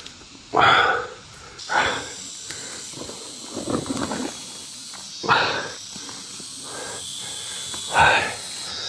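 Rustling in forest leaf litter and undergrowth: about five short swishes a second or more apart, over a steady high buzz of insects.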